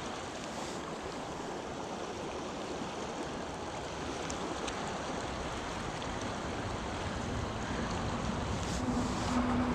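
River water rushing steadily over a shallow, choppy riffle. A low rumble of wind on the microphone builds near the end.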